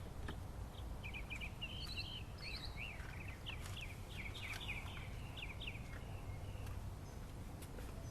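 Birds chirping and singing over a low, steady background rumble, with a few faint clicks.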